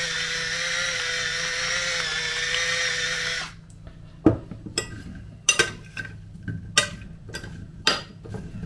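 A small electric grinder, most likely an electric salt mill, whirs with a steady whine for about three and a half seconds and then cuts off. Scattered sharp clicks and knocks follow.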